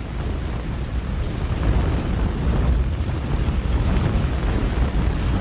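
Deep, continuous rumble of an explosive demolition, as steel tower floors are cut by shaped charges and the structure topples. It rises a little after about a second and a half, with no single sharp blast standing out.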